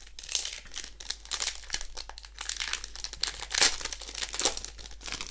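Foil wrapper of a Magic: The Gathering booster pack crinkling as it is torn open by hand, a run of short crackles with the loudest about three and a half seconds in.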